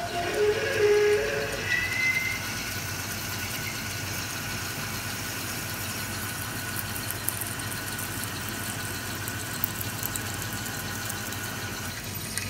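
Metal lathe running while a 3/8-inch twist drill feeds into a spinning aluminium bar, drilling the lead hole. There is a louder pitched whine in the first two seconds as the drill bites, then a steady hum and hiss from the motor and the cut.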